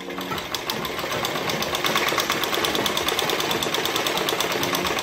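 Black domestic straight-stitch sewing machine running at a steady speed, a rapid, even clatter of stitches as it sews an invisible zip into a blouse's side seam.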